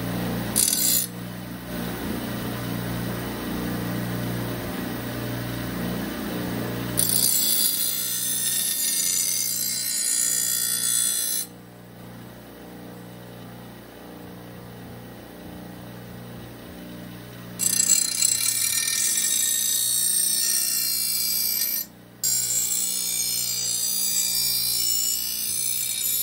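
Bench grinder motor running with a steady hum while a steel sickle blade is pressed against the grinding wheel in passes, each pass a hissing scrape. The blade is being sharpened for the first time. The scraping drops out for about six seconds in the middle, leaving only the motor hum, then comes back.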